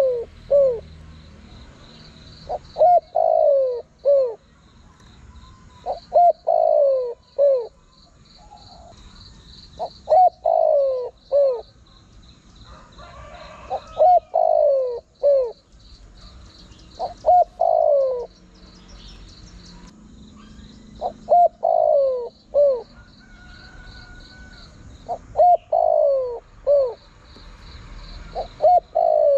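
Spotted dove singing its cooing song: phrases of two or three short coos and a longer falling coo, repeated about every three and a half to four seconds. A faint high pulsing chirr runs in the background.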